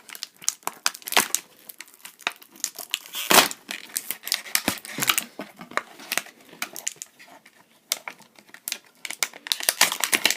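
Toy packaging crinkling and crackling as it is handled and pulled open, with irregular crackles and one louder snap about three seconds in.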